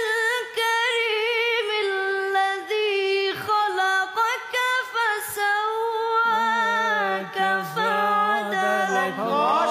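A boy's voice reciting the Quran in melodic tajweed style, unaccompanied, holding long, wavering, ornamented notes with short breaths between phrases.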